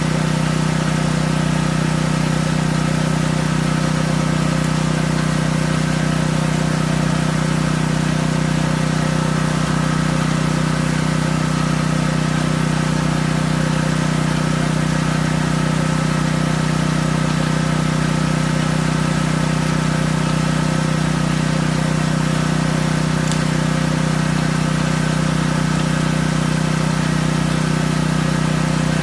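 Gasoline portable generator running steadily at constant speed, a loud even engine hum that does not change.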